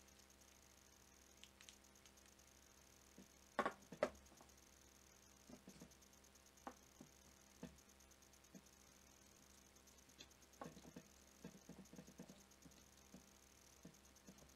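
Quiet clicks and knocks of plastic and metal jigsaw parts being handled and fitted into the housing by hand, with two louder knocks about three and a half seconds in and scattered small clicks later.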